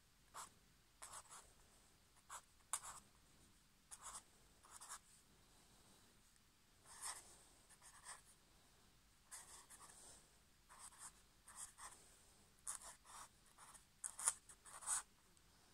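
Black marker pen scratching on paper in short, separate strokes as figures are written. There is about one quick stroke a second, coming a little faster near the end.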